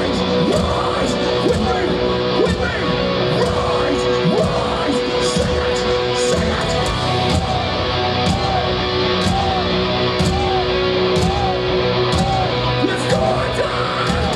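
Metalcore band playing live at full volume: distorted electric guitars and drums, with a lead guitar holding long notes and then playing a run of repeated bent notes.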